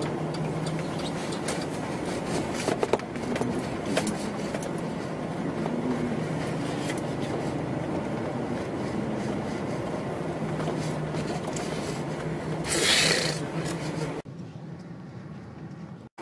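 Car cabin noise while driving: a steady engine drone and road rumble with scattered small clicks, and a brief rush of noise about thirteen seconds in. The sound then drops suddenly to a quieter hum.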